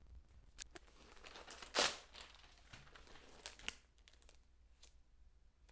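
Thin polyethylene plastic bag crinkling and rustling as it is handled, with scattered small crackles and one louder rustle about two seconds in.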